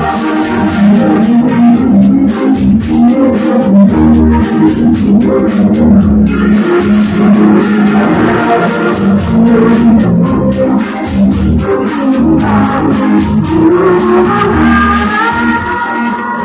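Music led by guitar, with low bass notes underneath.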